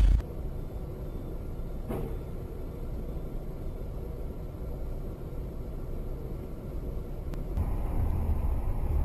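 Steady low rumble of a car driving, with road and engine noise. It grows louder about seven and a half seconds in, and there is a faint click about two seconds in.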